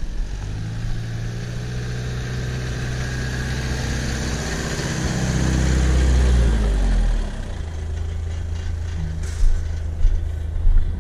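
A vehicle engine runs under load and grows louder for several seconds, then eases off about seven seconds in to a lower, steady idle. A few short knocks come near the end.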